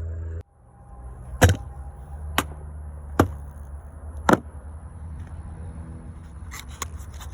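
Four sharp gunshots at irregular intervals of about a second, the first and last loudest, followed by a few faint clicks.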